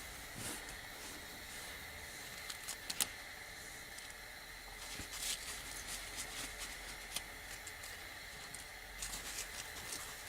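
Faint scattered clicks and light rustling from hands handling rubber hoses and plastic wiring connectors in an engine bay, with one sharper click about three seconds in, over a faint steady high tone.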